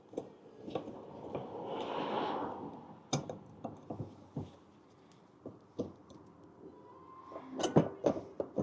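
Scattered light clicks and knocks of metal brake parts and tools being handled, with a brief scraping swell about two seconds in and a quick run of knocks near the end.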